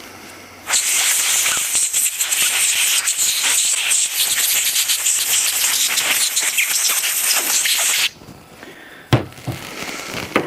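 A pressurised jet hissing steadily for about seven seconds with a crackling spatter, blown through a clogged generator fuel part to clean it, then cutting off suddenly. A couple of short knocks follow near the end.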